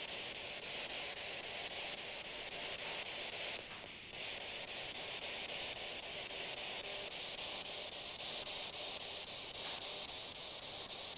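Steady hiss of radio static from a handheld spirit box scanning for voices, with a short dip about four seconds in.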